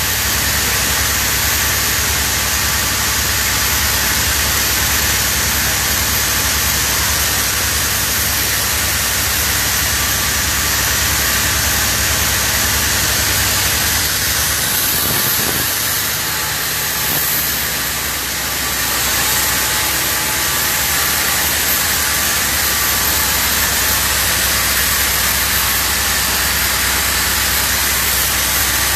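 Hangzhou Fortune oxygen-production machine running: a steady loud hiss over a low machine hum, the hum dropping away briefly around the middle.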